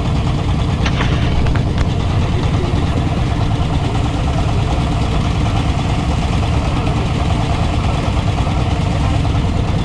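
A boat's engine running steadily at an even speed, with a few faint clicks about a second in.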